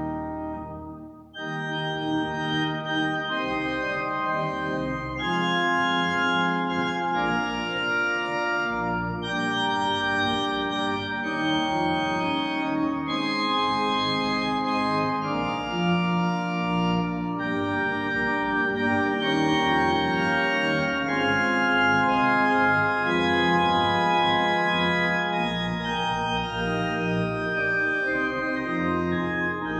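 Church organ playing the closing voluntary in full, sustained chords that change every second or so, with a brief break about a second in.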